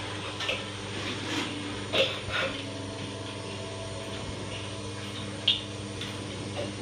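Goat milking machine running with a steady mechanical hum, broken by a couple of short, sharp hisses of air.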